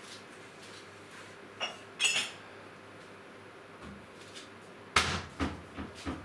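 Dishes being handled: a couple of ringing clinks about two seconds in, then a louder clatter about five seconds in, followed by several smaller knocks.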